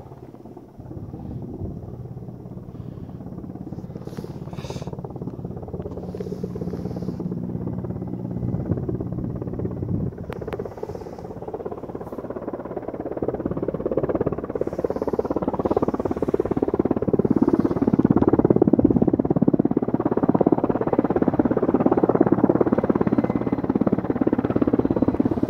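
Helicopter approaching to land, its engine and rotor sound growing steadily louder. A steady low hum at first gives way to a dense, rapid blade chop that is loudest near the end.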